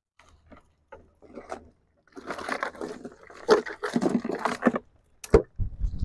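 Scraping and knocking from things being handled, a few light knocks at first, then a stretch of rough scraping, a sharp click and a heavy low thump near the end.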